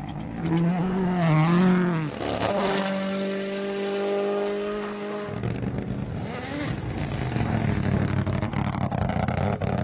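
Rally car engine at full effort: the pitch rises and falls over the first two seconds, then holds a high steady note, and from about five seconds in drops to a lower steady note with road and tyre noise.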